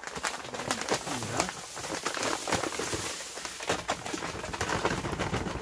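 White granulated sugar pouring from a paper sack into a plastic bucket: a steady grainy hiss with rustling and crinkling of the paper bag.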